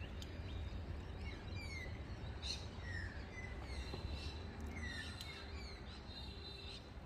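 Wild birds calling: several short, falling whistled notes spaced a second or so apart, over a steady low background rumble.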